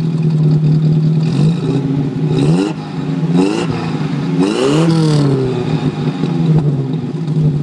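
Datsun Roadster exhaust at the dual tailpipe tips: the engine idles steadily, is revved three times, each rise in pitch dropping back to idle, then settles back to a steady idle.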